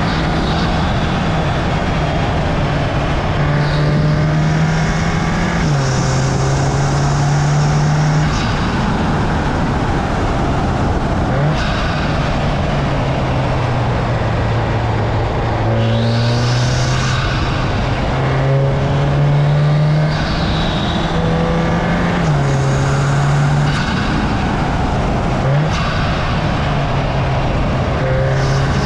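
Audi S3 (8Y) turbocharged 2.0-litre four-cylinder driving hard up a winding road. The engine note climbs under load and jumps in pitch at each of several gear changes, with turbo whistles coming and going over steady road and wind noise.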